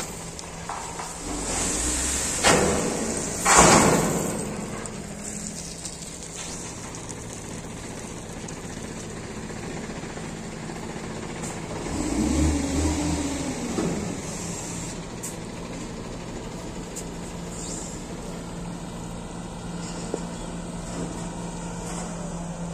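Caterpillar 140GC motor grader's diesel engine running steadily, with two loud noisy bursts about two and a half and three and a half seconds in. The engine swells briefly, rising and falling in pitch, around twelve seconds in.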